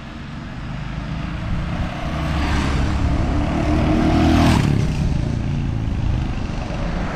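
Royal Enfield Hunter 350's single-cylinder engine, ridden fast toward and past the microphone. It grows louder as the bike approaches, is loudest about four and a half seconds in as it goes by, then eases off.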